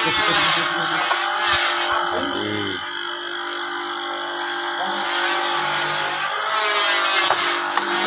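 A power tool running steadily on wood, a dense, high-pitched whirring noise.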